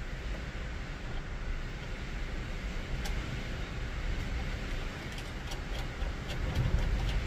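A steady low rumble with a few faint, light clicks scattered through the second half, as a nut is run by hand onto a battery's negative terminal bolt.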